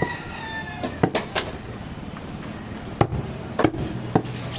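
Large butcher's knife chopping goat meat on a wooden chopping block: about six sharp chops, three in quick succession about a second in, then three more spaced out.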